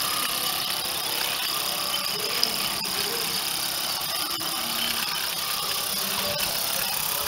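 Small live-steam garden-railway locomotive running along the track: a steady hiss of steam, with occasional sharp clicks.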